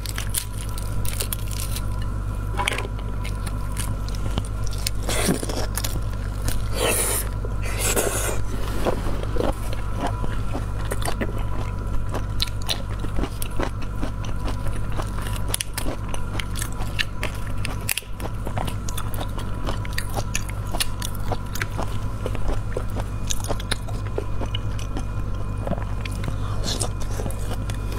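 Wet crackling and clicking of a large marinated black tiger prawn's shell being cracked and peeled apart by hand, with a few louder cracks, and biting and chewing near the end. A steady low hum runs underneath.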